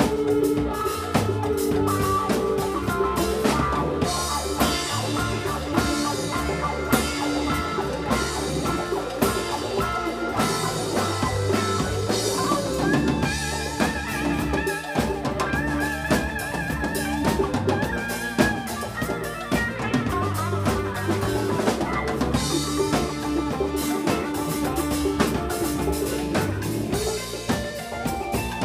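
Live funk band playing an instrumental passage with no vocals: drum kit with snare rimshots and kick, a bass line, and a wavering held melody line in the middle.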